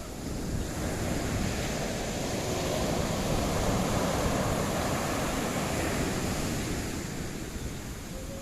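Mediterranean surf on a beach: a wave swells up and washes in over several seconds, then eases off. Wind buffets the microphone.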